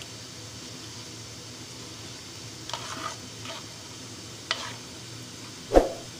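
A spoon stirring thick custard full of fruit pieces and nuts, with a wet squelching noise and a few light clicks. A louder single knock comes near the end.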